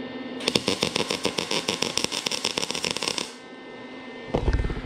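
Welding arc crackling for about three seconds as a short touch-up weld is laid on the car's steel side panel, over a steady low hum. A low thump follows near the end.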